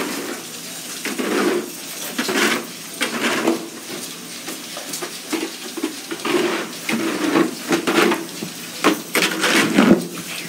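Long-handled barn scraper pushing hay along a concrete floor, scraping in repeated strokes about once a second.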